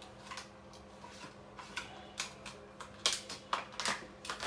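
Plastic packaging crackling and clicking as a phone cover is handled and slid out of its clear plastic sleeve. The crackles start sparse and grow thicker about halfway through.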